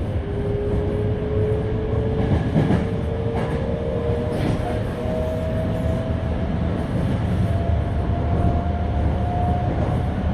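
Toei 5300-series electric train heard from inside the car while accelerating: a motor whine in two tones rises steadily in pitch over the rumble of the wheels on the rails, with a few short clicks of the wheels over rail joints around three to four seconds in.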